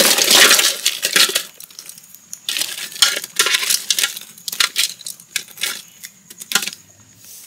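Crisp fried dough balls tumbling from a woven basket into a metal bowl: a dense clatter of hard little knocks for about the first second and a half. Then scattered clicks and rattles as a hand shifts the balls in the pile.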